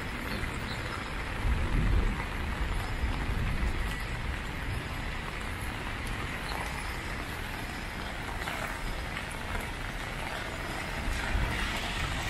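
Steady hiss of heavy rain falling on a wet city street. A low rumble swells up about a second and a half in and again near the end.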